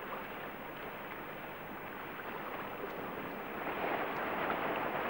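A steady rushing noise with no distinct events, swelling a little about four seconds in.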